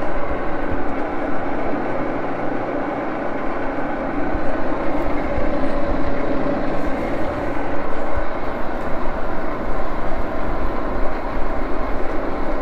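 Axelson engine lathe running steadily, its gear-head drive giving a constant hum with a layered whine over a low rumble.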